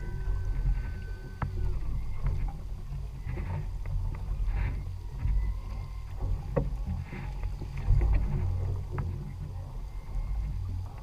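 Steady low rumble of a boat at sea: wind on the microphone over the 250 hp outboard running and water washing at the stern. A few sharp clicks come through, one of them about six and a half seconds in.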